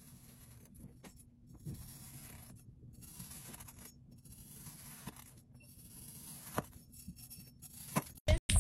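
Faint soft scraping and crunching of a chef's knife slicing down through a molded cone of green kinetic sand, with a couple of sharper ticks. A pulsing music beat cuts in near the end.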